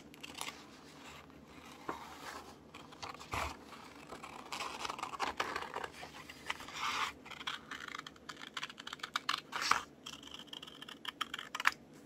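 Scissors snipping through a printed paper page while cutting closely around a face: a run of short crisp cuts with paper rustling between them, the snips coming quicker near the end.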